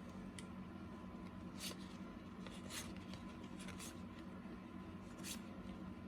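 1990-91 Skybox basketball trading cards being flipped through by hand, one card sliding off the next in short, faint scratchy swishes, about six of them.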